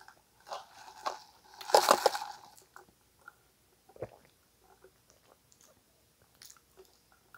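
Close-up mouth sounds of eating: chewing with crunchy, crackly bites, loudest about two seconds in. After that come only soft clicks and sips while she drinks through a straw, with a low knock about four seconds in.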